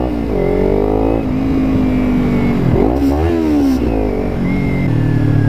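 Kawasaki Ninja 300's parallel-twin engine under way, its pitch climbing as it accelerates, dropping at the shifts and climbing again several times.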